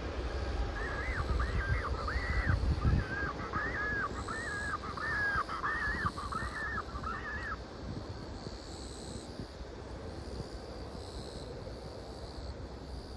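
A crow cawing about a dozen times in quick succession, then falling silent after about seven seconds. Underneath is a low rumble that weakens after about three seconds.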